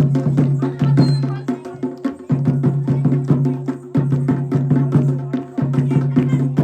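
Instrumental break in Kumaoni traditional folk music: quick, even percussion strokes, about four or five a second, over a held low note that drops out briefly a little over two seconds in.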